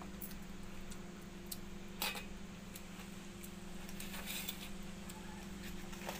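Eating by hand from a steel bowl of watered rice (pakhala): small mouth clicks and smacks, a sharp click about two seconds in, and a brief wet rustle of fingers in the bowl a little after halfway, over a steady low hum.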